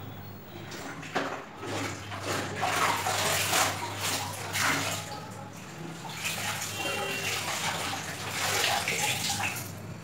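Water sloshing and splashing in a plastic bucket in irregular surges as wet clothes are dipped in starch water and wrung out by hand. A steady low hum runs underneath from about a second in.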